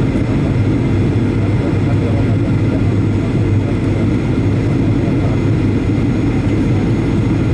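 Steady cabin drone of a Boeing 737-800 descending on approach, heard from a window seat beside the wing: the CFM56-7B turbofan and the airflow make a deep, even rumble, with a faint steady high tone above it.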